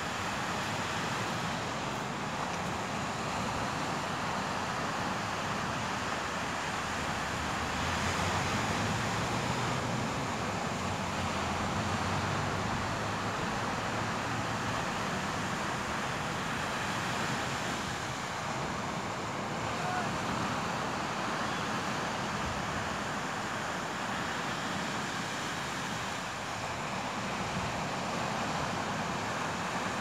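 Sea surf breaking and washing up the beach: a steady rushing noise that swells and eases gently.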